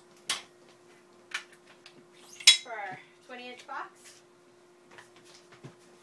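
Iron weight plates being handled on a barbell: a few sharp metallic clinks and knocks, the loudest about two and a half seconds in.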